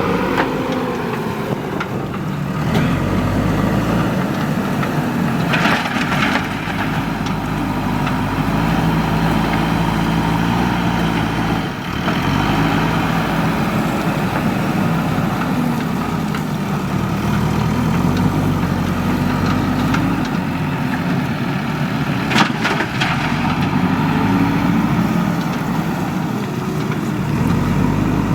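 Diesel engine of a JCB 3DX backhoe loader running and revving up and down repeatedly as it works, with a few brief clatters, the sharpest one about 22 seconds in.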